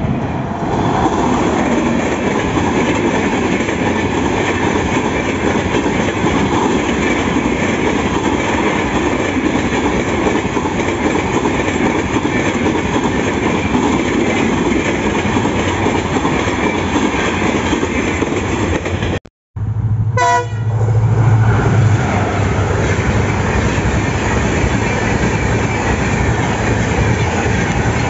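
Express passenger trains of LHB coaches passing at speed on the main line, a steady loud rumble with wheels clattering over the rail joints. The first is hauled by an electric locomotive; about two-thirds through, the sound cuts off abruptly and another passing train takes over, with a deep hum for a couple of seconds.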